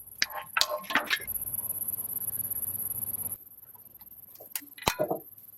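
Sharp clicks and knocks, then a steady hiss for about two seconds that stops abruptly, then a few more knocks near the end: hand work on parts in a workshop.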